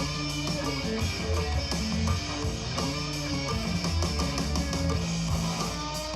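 Music with guitar over a steady beat, played back through a portable Bluetooth speaker.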